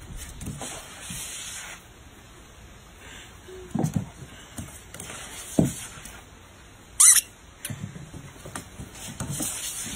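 A few short squeaks and soft knocks from a puppy making its way down a plastic playground slide, the loudest a sharp, high squeak about seven seconds in.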